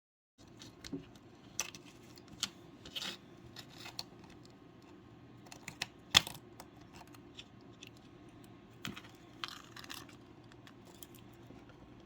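Small tools working on a tiny iPod Nano's metal and plastic parts: scattered light clicks, ticks and short scrapes, the sharpest click about six seconds in.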